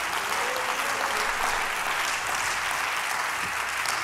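Congregation applauding steadily, a sustained round of clapping.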